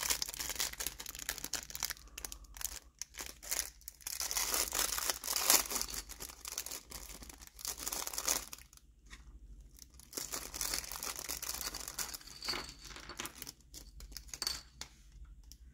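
Thin clear plastic bags crinkling and rustling as they are handled and pulled open, in irregular crackles that thin out briefly a little past the middle.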